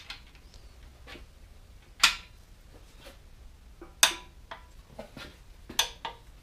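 Click-type torque wrench tightening main bearing cap bolts to a first-pass 50 ft-lb: three sharp clicks about two seconds apart as the wrench breaks over at its set torque, with fainter ratchet ticks between.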